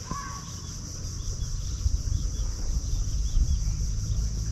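Steady high-pitched drone of insects, with a short bird-like chirp right at the start and an uneven low rumble on the microphone underneath.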